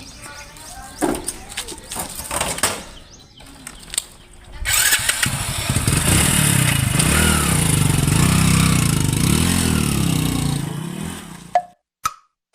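Hero HF Deluxe motorcycle's small single-cylinder four-stroke engine starting after a few clicks and knocks, then running and revving with rising and falling pitch for about six seconds before cutting off suddenly. A couple of sharp taps follow near the end.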